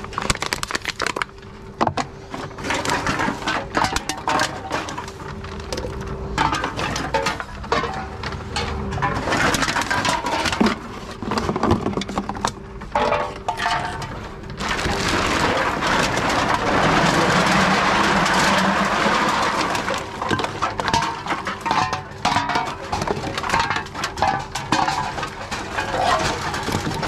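Empty aluminium drink cans and plastic bottles clinking, knocking and crinkling as they are handled and fed into a reverse vending machine, over a steady hum. About halfway through comes a longer stretch of rattling and rustling as a bag of containers is tipped into the basket.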